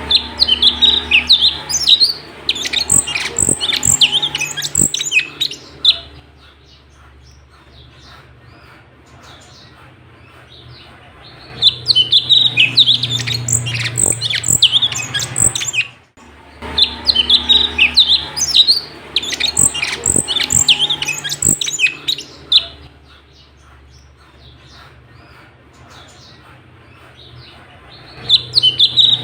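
A cucak cungkok, an Indonesian songbird, singing loud, rapid chattering song in bursts of several seconds, with quieter pauses between them. A low hum sits under the song.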